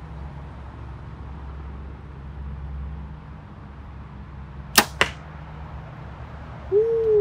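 Compound bow shot: a sharp crack as the string is released, then about a quarter second later the smack of the arrow hitting the BigShot IronMan archery target. Near the end a single hoot-like call rises briefly and then falls in pitch.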